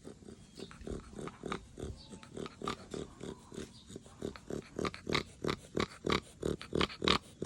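A Chow Chow dog snoring in its sleep: quick, rhythmic snorting breaths about three a second, growing louder about halfway through.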